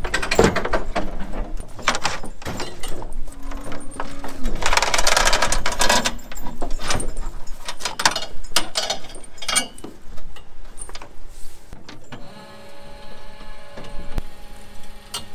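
Metal clanks and rattles of a tilting cattle hoof-trimming crate as a cow is loaded and strapped in. About twelve seconds in, a steady motor hum with several held tones starts: the crate's hydraulic winch running.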